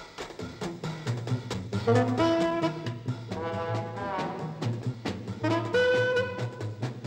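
Jazzy brass film score: trumpets and trombones play held notes and falling slides over a steady low bass, with sharp clicks running throughout.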